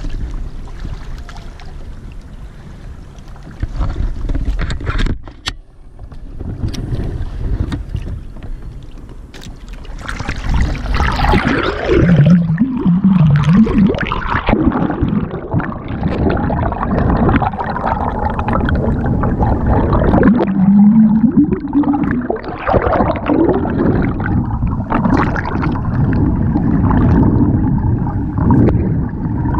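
Water rushing and gurgling around a GoPro held underwater beside a moving Hobie sailing kayak's hull, loud and churning from about ten seconds in once the camera goes under. Before that, quieter water and wind noise above the surface.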